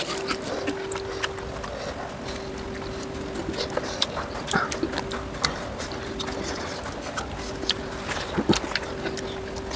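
Close-up eating sounds: irregular wet clicks and smacks of chewing and of fingers pulling apart a cooked chicken leg, over a faint steady hum.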